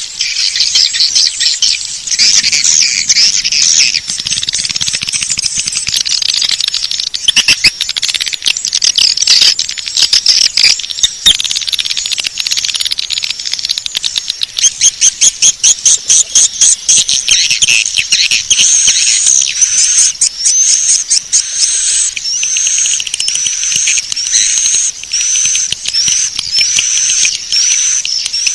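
Swiftlet call track: a dense, loud mix of high twittering and rapid clicking from swiftlets, of the kind played to lure swiftlets into a nesting house. In the second half a short upward chirp repeats about once a second over the twittering.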